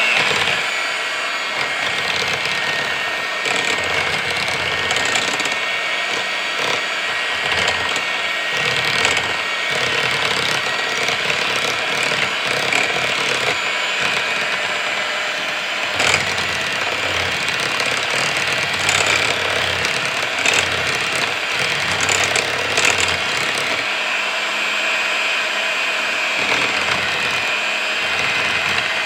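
Small electric kitchen appliance motor running steadily, mixing a batter.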